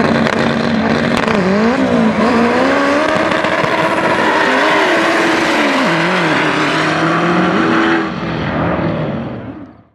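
Drag-racing cars accelerating hard down the strip, engine pitch climbing and dipping at each gear shift. The sound fades away near the end.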